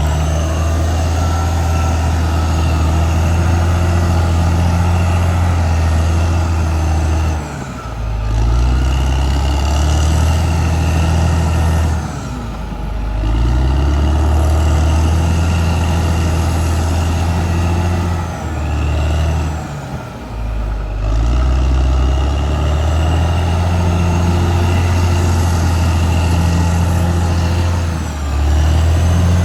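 Caterpillar D6R XL bulldozer's diesel engine running hard under load, dropping off and picking up again four times, with a steady whine above the engine note.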